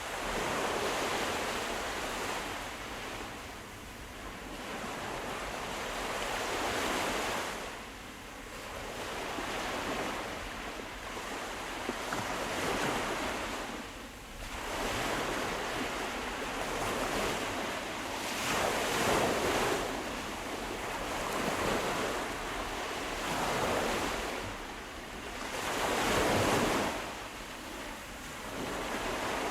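Sea waves breaking and washing ashore, a hiss of surf that swells and falls back every few seconds.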